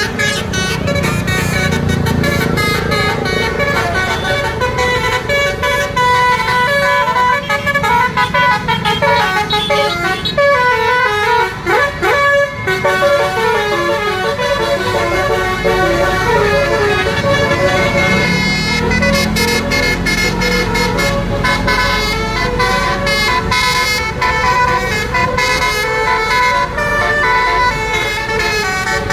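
Basuri musical bus horn playing a tune in quick stepped notes over the low, steady running of a bus engine. About halfway through, one swooping note dips down and comes back up.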